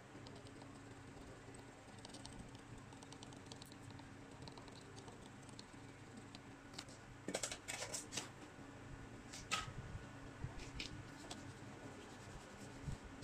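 Small hand tools and a soldering iron working on the COF bond of a TV panel: faint scattered clicks and scrapes, with a cluster of sharper ticks about seven to eight seconds in and another near ten seconds, over a steady low hum.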